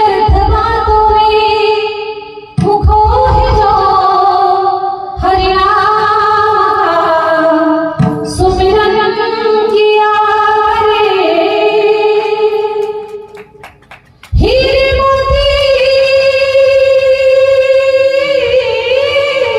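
A woman singing a devotional song in long, held phrases that bend in pitch, with short breaths between them and a longer pause about two-thirds through.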